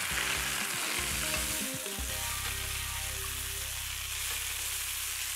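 Chicken rolls wrapped in prosciutto sizzling steadily as they brown in hot olive oil in a pan.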